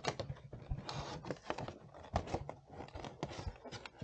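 Cardboard and plastic headphone packaging being handled: rustling and crinkling with a quick, irregular run of small clicks and taps as the contents come out of the box's plastic tray.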